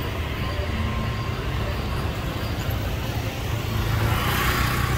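Busy street traffic: a steady rumble of scooter and car engines, with a car passing close near the end.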